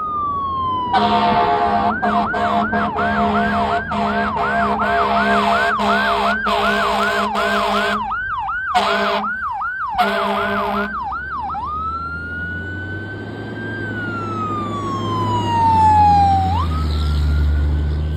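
Fire truck siren winding down, then switching to a fast yelp of about two to three sweeps a second while an air horn sounds in a string of blasts with short breaks. After the horn stops, the siren goes back to a slow wail that rises, falls, and jumps back up near the end, with a low rumble underneath.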